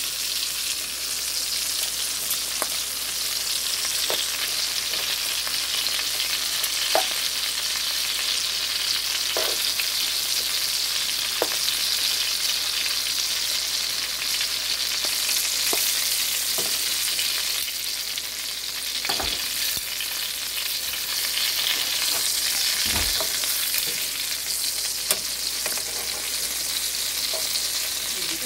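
Italian sausages with sliced peppers and onions sizzling in a frying pan: a steady high hiss of hot fat. Scattered clicks and a couple of duller knocks come from metal tongs against the pan as the sausages are turned.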